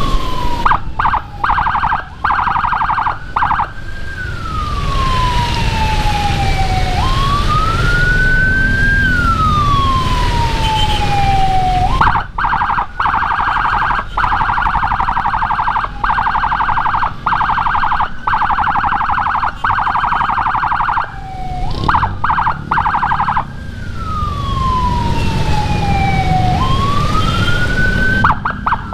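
Electronic escort siren (Whelen HHS Lite module through a Senken horn speaker) switching between a slow wail and a rapid yelp. The wail jumps up and falls slowly over about three seconds, three times. The yelp runs in several-second stretches broken by brief cut-outs, over engine and road rumble.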